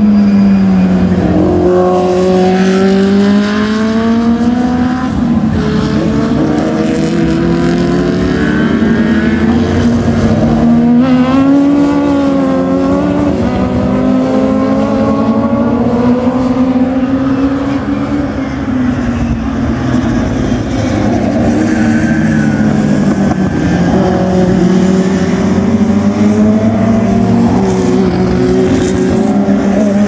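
Historic Formula Junior single-seater race cars at speed, several engines heard at once, their notes repeatedly rising and falling as they accelerate, lift and change gear through the corners.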